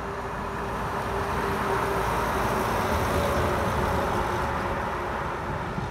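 A heavy milk tanker truck and trailer driving past on the highway: a steady engine drone with tyre and road noise that grows louder as it comes near and passes, then eases slightly near the end.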